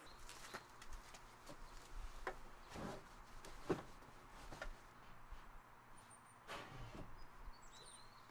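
Camping gear being handled and stacked on shelves: scattered soft knocks, bumps and fabric rustling, with the sharpest knock about three and a half seconds in. Faint bird chirps near the end.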